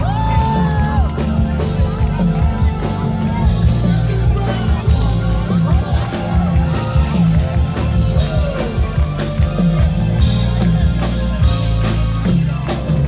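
Live band music at full volume: drum kit and bass keep a steady beat under a gliding lead melody.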